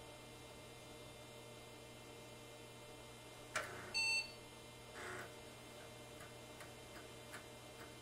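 IBM PC 5150 starting up: a click, then one short electronic beep from its built-in speaker, the single beep that signals the power-on self-test has passed. A brief whirr follows about a second later, then a string of soft ticks from the 5.25-inch floppy drive as it begins to read.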